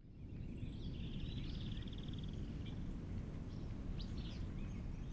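Outdoor nature ambience: a steady low rumble with small birds calling over it, a rapid trill about a second in and a few short chirps near the end. It fades in at the start.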